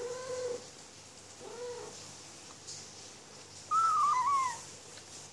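Kitten eating dry kibble and crying into the bowl as it eats. Two short, low cries come early, then a louder, higher wavering cry about four seconds in. The owner takes the cries for the kitten being angry at its food.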